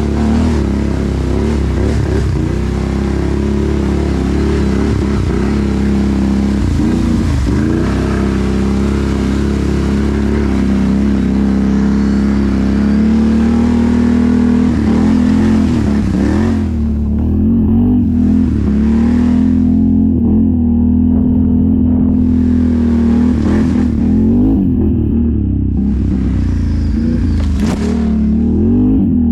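Can-Am Renegade ATV engine running under way on a rough trail, its revs rising and falling constantly as the rider throttles on and off. A hiss over it drops away and returns several times in the second half.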